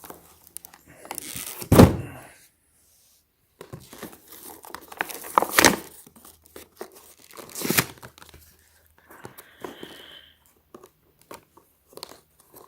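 Hands wrestling with tightly sealed plastic packaging, trying to tear it open: crinkling and tearing with a few sharp, louder thumps and rips, about three of them standing out.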